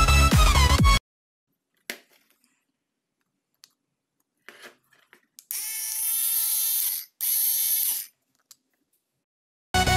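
Electronic music cuts off about a second in. After a few faint clicks of handling, a small electric motor whirs in two short runs, the first about a second and a half, the second shorter.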